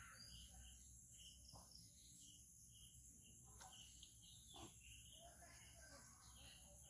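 Near silence: quiet outdoor ambience with faint, scattered bird chirps over a steady high insect drone.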